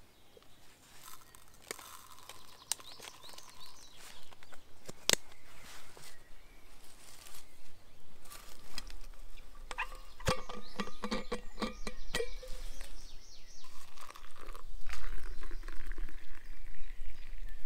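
A green vacuum flask being opened and handled, with scattered clicks and scrapes and a run of ringing metallic clinks about ten seconds in. Near the end, hot liquid is poured from the flask into a small metal camp cup.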